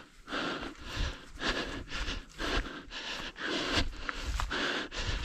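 A man breathing hard in quick, noisy breaths, about two a second, with low thuds and rustling underneath.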